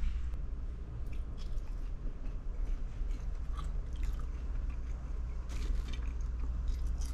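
A person chewing French fries close to the microphone: soft, irregular crunches and small clicks over a steady low hum.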